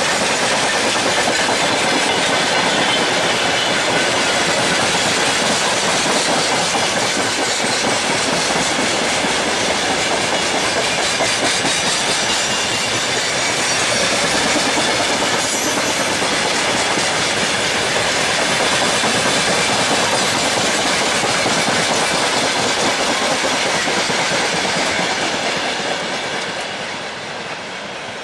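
Long broad-gauge freight train of open wagons rolling past close by, a steady clatter and rumble of wagon wheels on the rails. It fades near the end as the last wagons move away.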